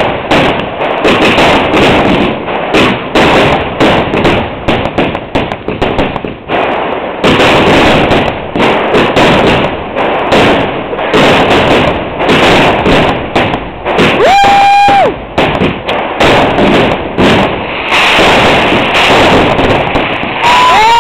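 Fireworks going off in a rapid, continuous barrage of bangs and crackling. A steady whistle sounds about fourteen seconds in and dips at its end, and another starts just before the end.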